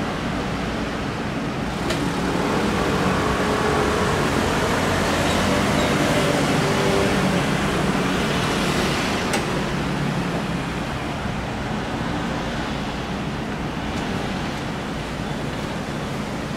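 Steady city street traffic noise: the continuous hum of passing cars and scooters, swelling a little midway, with a few light clicks.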